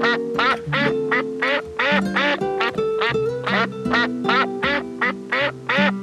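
Domestic duck quacking in a fast, steady run of short nasal quacks, about three a second, with background music playing underneath.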